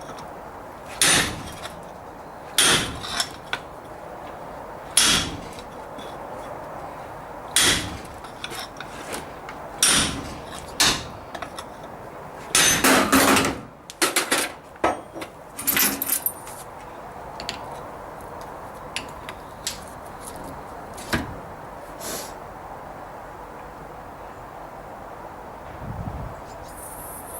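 Homemade hydraulic hub puller being pumped by hand against a stubborn Triumph Herald rear hub: short creaking, scraping strokes every couple of seconds, with a louder burst of strokes about halfway, then only a few faint clicks in the last third.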